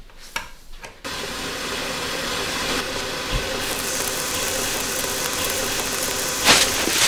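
A KitchenAid Artisan stand mixer switched on after being plugged in: a few faint clicks, then about a second in its motor starts suddenly and runs with a steady whirring hiss as the beater turns in the steel bowl. A brief louder burst comes near the end.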